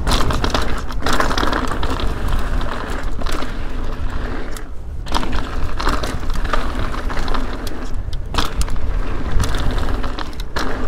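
Ibis Ripmo mountain bike rolling fast down a dry dirt jump trail: tyres crunching over dirt and loose gravel, the bike's chain and parts rattling, with wind rumbling on the microphone. The noise dips briefly three times.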